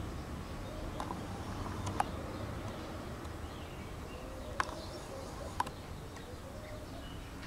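Steady low outdoor background noise broken by four short, sharp clicks, in two pairs about a second apart, the loudest about two seconds in.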